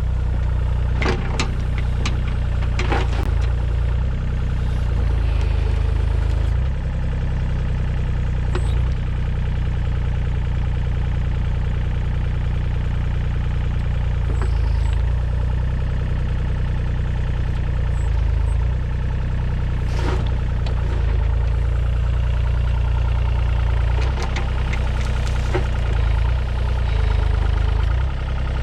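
Mini excavator's diesel engine running steadily, with several sharp metallic knocks as the machine is worked.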